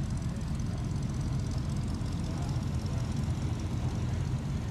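Low, steady engine and exhaust rumble of classic cars and trucks driving slowly past in traffic.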